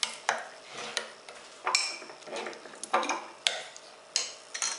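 Serving from a stainless steel pot with a wooden spoon: the spoon knocks and scrapes against the pot and plate, making about eight sharp, irregularly spaced clinks and knocks.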